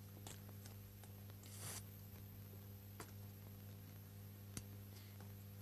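Near silence: a steady low hum with a few faint clicks and one soft brief rustle about a second and a half in.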